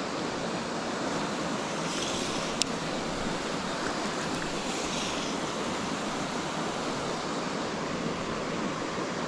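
River water rushing over a rocky riffle, a steady even rush, with one sharp click about two and a half seconds in.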